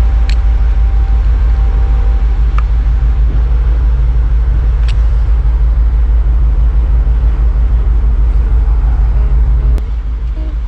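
Loud, steady low rumble of wind buffeting the microphone on a ship's open deck, with a few faint clicks from handling. Near the end the rumble drops a little.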